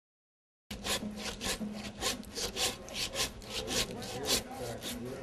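Hand bone saw cutting through a hog carcass's backbone in quick back-and-forth strokes, about three a second, splitting the carcass into two halves. It starts abruptly about a second in.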